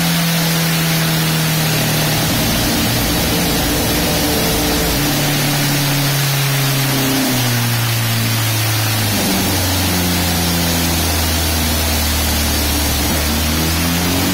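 Honda CBR1000RR inline-four running on a dyno through an Arrow full-system exhaust, its engine note dropping in pitch in several steps and held steady between them, then beginning to climb again near the end. A loud steady rushing noise runs underneath.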